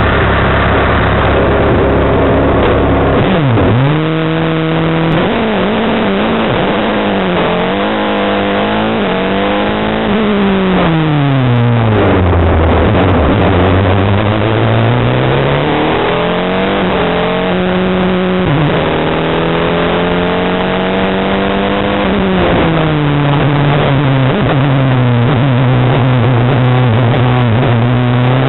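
Single-seater race car's engine heard from the cockpit. It is held at steady high revs on the start line for about three seconds, then launches and revs hard through the gears. The pitch climbs and breaks at each upshift, and falls away under braking and downshifts for the bends.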